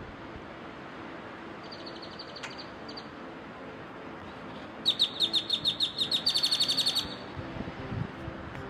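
A bird calling in quick, high repeated chirps, about eight a second: a short faint run about two seconds in, then a louder run of about two seconds near the middle. Under it runs a steady rush of gentle surf.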